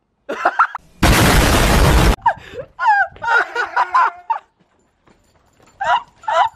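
A loud, harsh burst of noise lasting just over a second, starting about a second in, like an explosion sound effect. Around it come a man's wordless gagging and retching noises.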